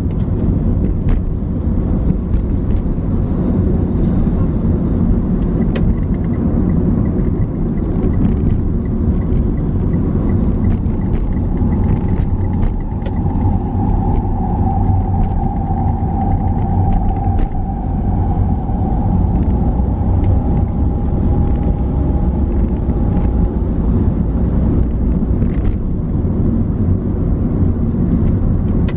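Steady low rumble of engine and road noise from a vehicle moving through slow, heavy traffic. A thin steady whine joins for about ten seconds in the middle.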